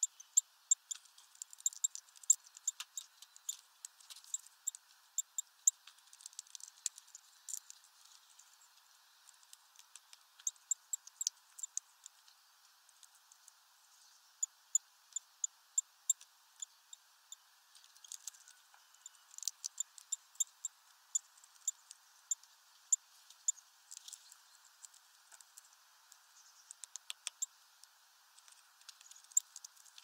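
Hawfinch cracking seeds in its heavy bill: irregular sharp clicks and cracks in clusters, with short pauses between them.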